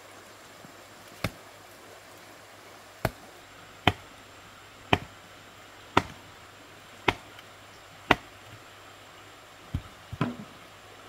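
A series of sharp, hard knocks, about one a second, seven in a row, then a quicker cluster of lighter knocks near the end: hard wood or bamboo being struck during fence work.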